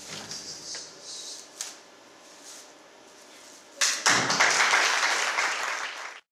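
Faint taps and rustles, then about four seconds in a burst of audience applause that cuts off abruptly.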